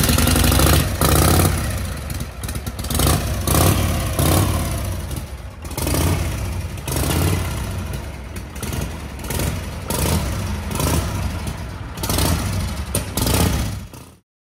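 Motorcycle engine running and being revved, its sound rising and falling in repeated swells. It stops abruptly near the end.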